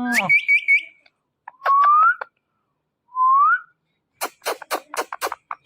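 Ringneck parrot whistling: a rising call breaking into a quick run of short high notes, then two separate rising whistles, then a rapid string of about six harsh chirps near the end.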